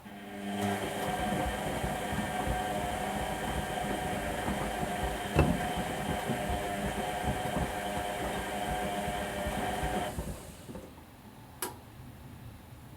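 Whirlpool Indiana 1400 washing machine motor turning the drum with a steady whine and rumble, starting about half a second in and stopping after roughly nine and a half seconds. A single sharp knock about halfway through, and a short click near the end.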